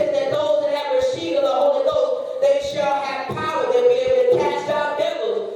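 Church congregation singing together, many voices holding sung notes.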